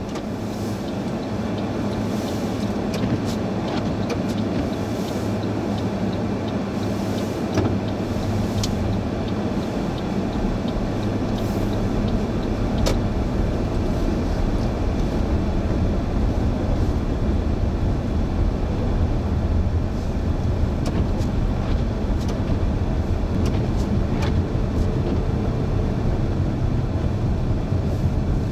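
A car driving, with steady road and engine rumble and scattered light clicks and ticks.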